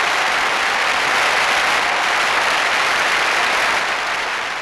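Large crowd applauding, a dense steady clapping that begins to fade near the end.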